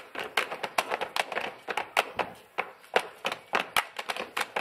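A group's rhythmic hand claps and slaps in a body-percussion dance: sharp, even slaps at about five a second.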